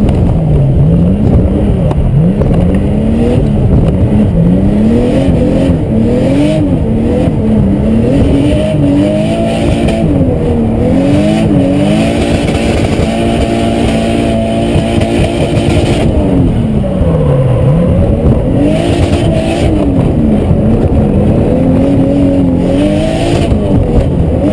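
Nissan Skyline R32's turbocharged RB25DET straight-six, heard from inside the cabin, revving up and down over and over as the car drifts. The revs are held steady and high for a few seconds about halfway through.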